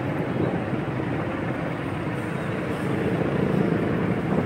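Steady road traffic noise from motorcycles and other vehicles, heard from in among the traffic while moving along the road.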